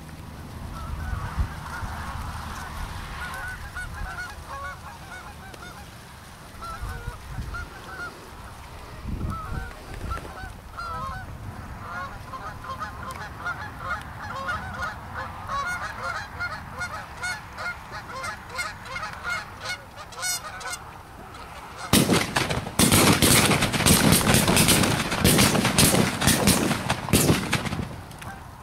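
A flock of geese honking in flight, many short calls overlapping and repeating. For the last several seconds a much louder, close, rapid run of sharp sounds takes over.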